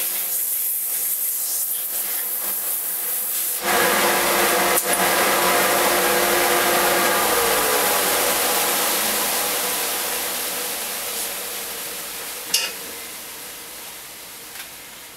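Compressed air hissing as it is blown over a freshly sanded wooden speargun stock to clear sanding dust out of the grain. It starts abruptly and loudly about three and a half seconds in, over a softer hiss, then fades away gradually over the last several seconds.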